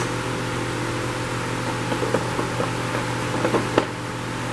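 Steady fan-like hiss over a low hum, with a few faint light clicks between about two and four seconds in.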